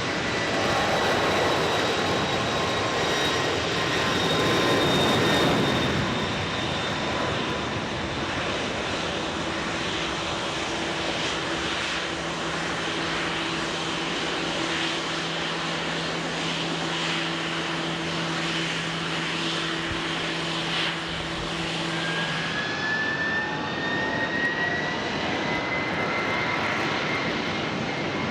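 Jet airliner engines running with a steady rushing noise. A low steady hum sits under it through the middle, then a high whine starts about two-thirds of the way in and climbs slowly.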